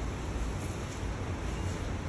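Steady background noise with a low rumble and an even hiss, with no distinct events.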